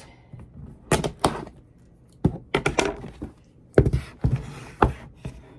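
A mail package being opened and unpacked by hand: a run of sharp knocks and taps of packaging being handled, with light rustling between them.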